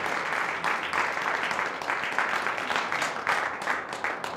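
Audience applauding: many hands clapping in a dense, even clatter.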